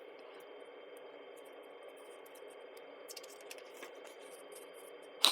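Quiet room tone with a faint steady hum, a few light clicks from handling about halfway through, and one sharper click at the very end.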